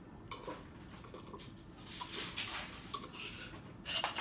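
A person drinking sparkling water from a glass jar: faint gulps and swallowing, with a louder short sound near the end as the jar comes away from the mouth.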